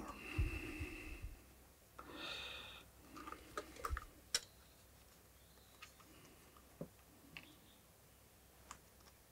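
Light clicks and taps of small screws and metal and plastic parts being handled while a desoldering handpiece is fitted together, after a soft thump and rustle at the start.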